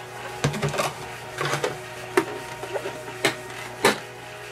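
Hard plastic clicks and knocks from a disassembled Suzuki Wagon R MH23S power-folding door mirror housing being handled and turned over, about half a dozen irregular knocks, over a faint steady hum.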